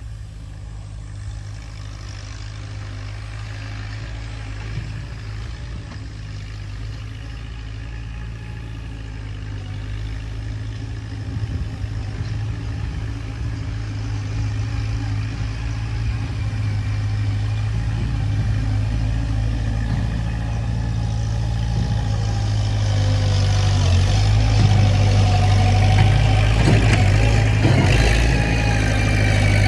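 Skid loader engine running steadily, growing gradually louder, with a higher whine and a few clanks joining in over the last several seconds.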